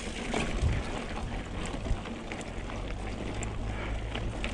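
Mountain bike (a Trek Remedy 8) rolling over rocky dirt trail: tyre and drivetrain noise with scattered clicks and knocks over a steady low rumble.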